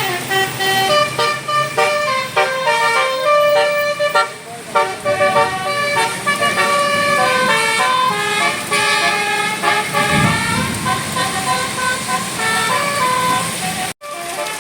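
Bus 'telolet basuri' multi-tone musical horn playing a melody: a quick string of clear notes stepping up and down one after another. A low rumble comes in briefly about ten seconds in, and the sound drops out for an instant near the end.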